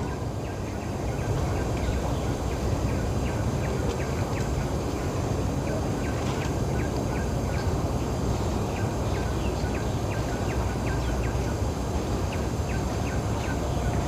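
Wind buffeting the microphone in a steady low rumble, with many short high ticks scattered irregularly through it.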